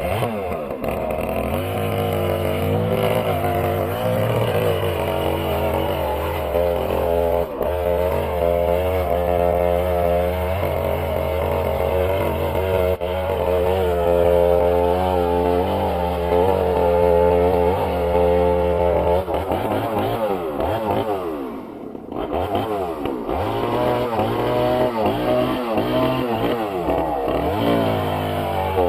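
An engine running at a sawmill, its speed wavering up and down. About twenty seconds in it slows and dips, then picks up again.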